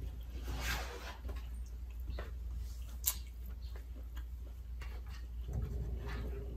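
Eating sounds: chewing, and a plastic fork clicking and scraping against a plastic takeout container, with one sharp click about three seconds in, over a steady low hum. A faint steady tone joins near the end.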